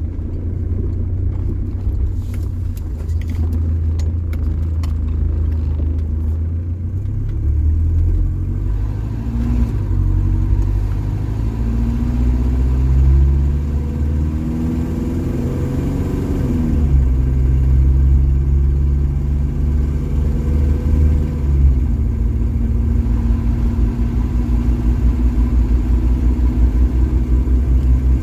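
Mercedes-Benz OM616 four-cylinder diesel engine running under way through its new homemade exhaust. Its pitch holds steady at first, then climbs and falls with the throttle, dropping sharply twice, and settles into a steady, pulsing run near the end.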